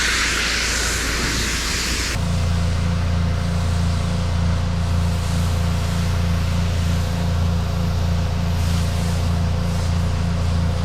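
Pressure-washer spray hissing for about two seconds, then an abrupt switch to a steady low engine drone with no change in pitch.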